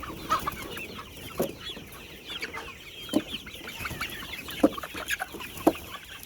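A flock of hens clucking and chattering steadily, with about five louder sharp sounds standing out over the dense chatter.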